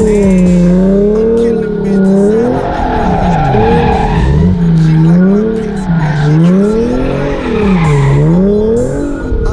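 Car engine revving up and down over and over, its pitch rising and falling about every second and a half, with tire squeal mixed in.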